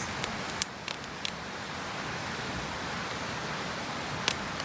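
Campfire crackling: a few sharp wood pops over a steady hiss.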